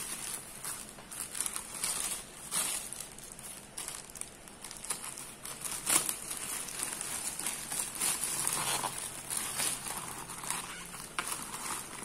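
Black plastic courier bag crinkling and rustling as hands work it open, with irregular sharp crackles throughout.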